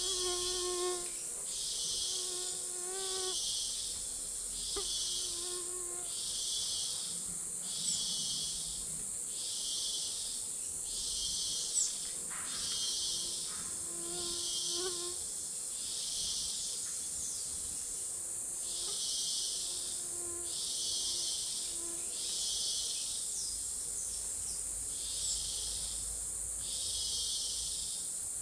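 Tropical rainforest insect chorus: a steady high-pitched buzz with a second insect call pulsing about once a second. Faint short calls from another animal sound now and then, lower in pitch.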